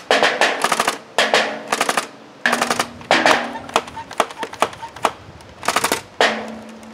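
Pump-up, air-powered, fully automatic BoomCo foam-dart blaster firing rapid bursts of sharp pops from its magazine, then a few single shots near the end.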